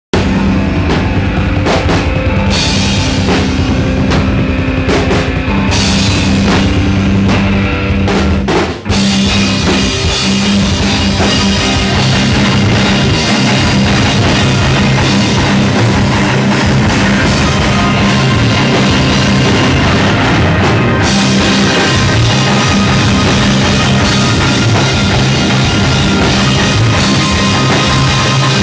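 Live metal band playing loudly: electric guitars holding heavy low chords over a pounding drum kit, with a brief stop about nine seconds in before the whole band comes back in.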